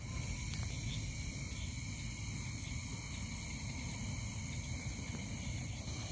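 Steady chorus of crickets and other insects, several high trills held level throughout, over a continuous low rumble.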